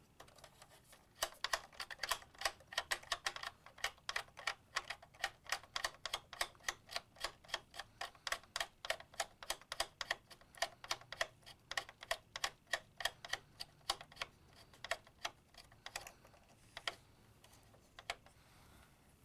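Plastic hose reel of a Playmobil ladder truck toy being turned by hand, clicking steadily about three to four times a second as the segmented plastic hose winds on. The clicking stops near the end, with a couple of last clicks.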